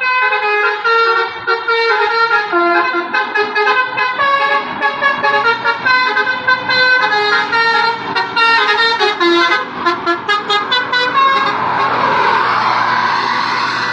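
Telolet basuri bus horn, a multi-tone air horn, playing a quick tune of stepped held notes that gets faster toward the end. About two seconds before the end the tune breaks off into a noisy rush.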